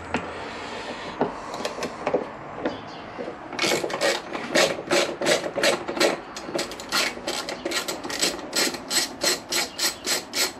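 Hand ratchet clicking as a bolt is undone, in quick even strokes that start about three and a half seconds in and speed up toward the end.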